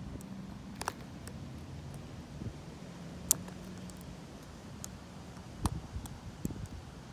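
Scattered small, sharp clicks of a short hook pick and tension tool working the pins of a Lockwood 570 oval mortise lock cylinder; the sharpest click comes about three seconds in. Beneath them runs a steady, muffled wind rumble on a jacket-covered microphone.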